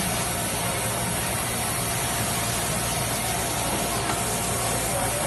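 Steady machine noise of a garment sewing floor: a continuous hiss over a low hum, with no distinct strokes or changes.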